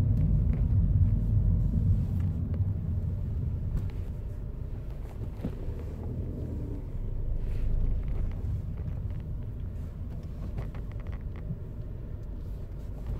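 A car driving, heard from inside: a steady low rumble of engine and road noise that eases off over the first few seconds and then carries on more quietly, with a few faint clicks.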